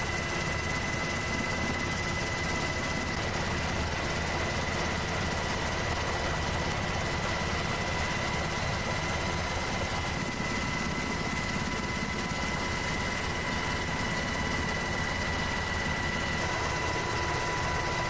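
Steady engine and rotor noise of a helicopter in flight, an even rush with a high, constant whine over it.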